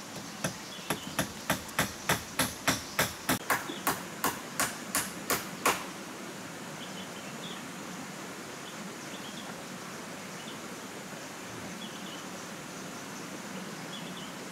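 A rapid run of about sixteen sharp knocks of a tool striking, about three a second, stopping about six seconds in. After that a steady outdoor hush with faint short chirps.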